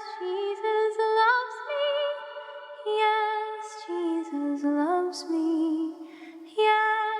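Slow a cappella vocal harmony: layered voices, a female voice among them, holding and stepping between sustained notes, with a short dip before a new phrase begins near the end.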